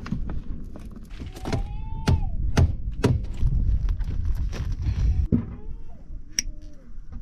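Hand tools clicking and knocking sharply, several times, while a punctured tyre is being plugged. Wind rumbles on the microphone through most of it, and a few faint gliding calls sound in the background.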